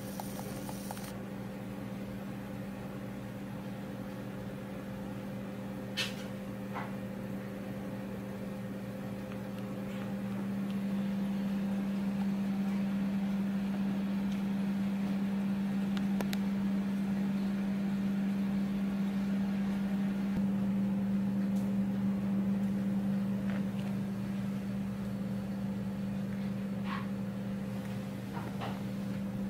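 A steady low machine hum, growing a little louder about a third of the way in, with a few faint clicks.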